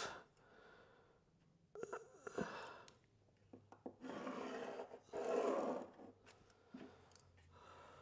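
Pencil scratching along a spirit level on plasterboard while marking a line: three faint scratchy strokes of about a second each.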